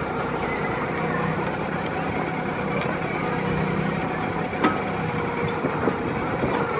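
Kioti compact tractor's diesel engine running steadily while its KB2375 backhoe's boom and bucket are moved on the hydraulics, with one sharp click a little past the middle.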